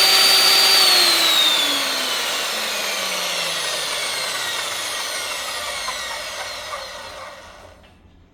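Concrete core drill's electric motor running at full speed with a high whine, then switched off about a second in and spinning down, its whine falling steadily in pitch and fading until it stops near the end.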